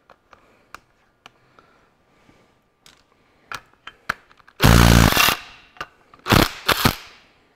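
Cordless power tool run on the injector clamp nuts: one short burst about halfway through, then two briefer bursts near the end. Before that come light metallic clicks of the socket being fitted to the nut.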